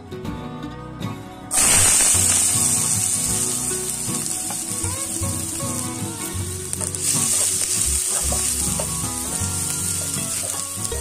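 Diced onions hitting hot vegetable oil in a nonstick pan: a loud frying sizzle starts suddenly about a second and a half in. It keeps going as the onions are stirred with a wooden spatula, and swells again about seven seconds in.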